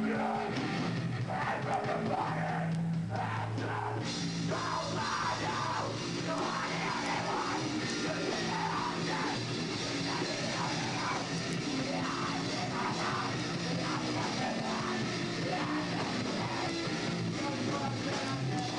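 A heavy rock band playing live: electric guitar, drum kit and a singer yelling into a microphone.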